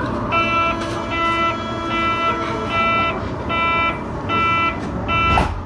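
Door-closing warning of a Berlin U-Bahn HK06 train: seven evenly spaced beeps, a little over one a second, followed near the end by a single thud as the doors shut.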